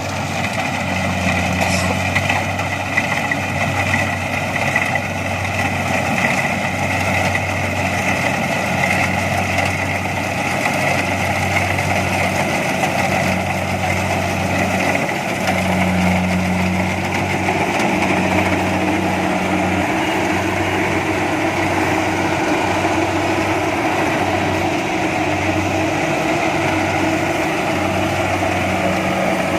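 Kubota DC-70 Plus rice combine harvester running steadily, a low engine hum with a higher mechanical whine over it.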